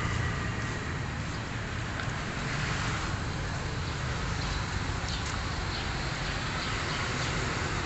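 Street traffic ambience: a steady wash of motorbike and car noise from the road alongside.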